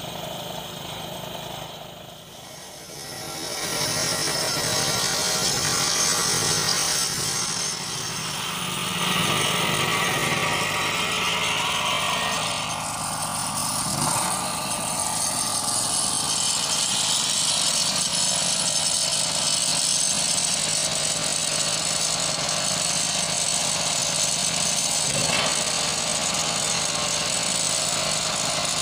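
Engine of a walk-behind road-marking paint spray machine running steadily, with a dense hiss over it. The sound dips briefly about two seconds in, then grows louder and stays even.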